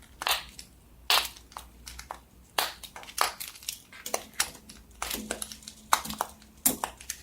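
Fidget toys and plastic packaging being handled: irregular sharp clicks and taps with plastic crinkling, busiest a little after five seconds in.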